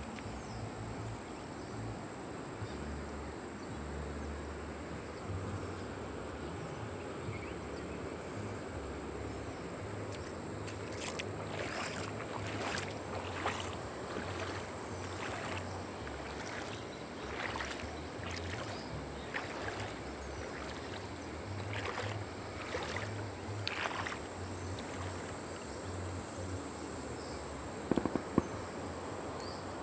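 Steady rush of a wide, fast-flowing river, under a low rumble and a thin steady high whine. From about ten seconds in comes a run of short sharp crackles for some fifteen seconds, and two loud knocks near the end.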